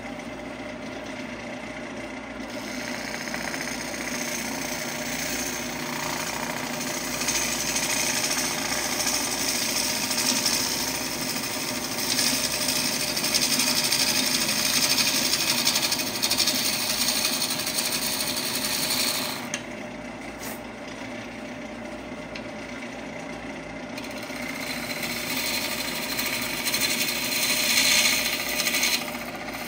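Wood lathe running, with a bowl gouge cutting the spinning glued-up wood blank in a steady scraping hiss over the motor hum. The cutting stops for a few seconds about two-thirds of the way through, with the lathe still turning, then starts again.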